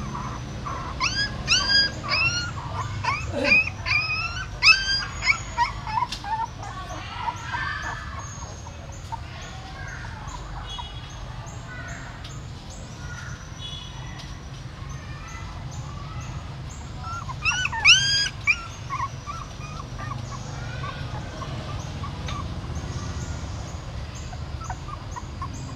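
Young puppies whimpering and squealing with short, high-pitched cries. There is a run of many cries in the first six seconds or so and another brief cluster about eighteen seconds in.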